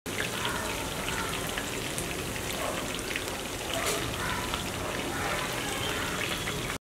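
Coated chicken pieces with green herbs deep-frying in hot oil: a steady sizzle full of fine crackles and pops, which stops abruptly just before the end.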